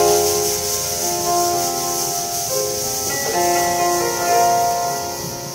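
Yamaha CP4 stage piano playing slow, sustained chords. The harmony changes about two and a half seconds in and again just after three seconds.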